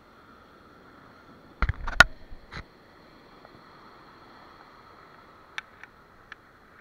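Gear being handled: a quick cluster of knocks about two seconds in, the loudest a single sharp knock, then a few light clicks near the end, over a faint steady background.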